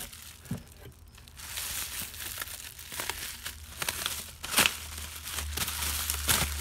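Plastic packaging crinkling as a wrapped part is pulled from a cardboard box and handled. The crinkling starts about a second and a half in, with a few sharper crackles later.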